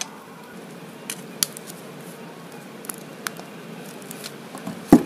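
Handling noise from a hoverboard's shrink-wrapped lithium-ion battery pack being lifted out and turned over in gloved hands: a few light clicks and plastic rustles, then a louder thump near the end.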